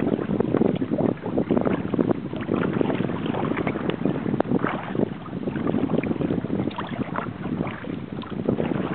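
Water splashing and gurgling irregularly against the hull of a kayak under way, mixed with wind on the microphone.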